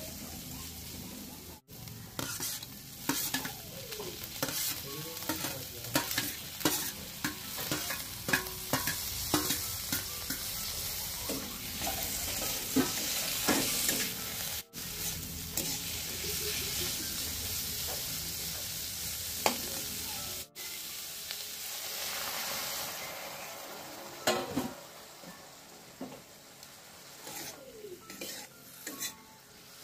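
Food sizzling in hot oil in a pan while a spoon or spatula stirs it, scraping and clinking against the pan over and over. The sizzle gets softer for the last third, and the sound drops out briefly three times.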